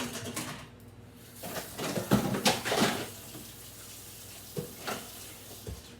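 Kitchen handling sounds: food containers and jars being knocked and shifted about, in a cluster of short bursts in the middle and a few clicks near the end.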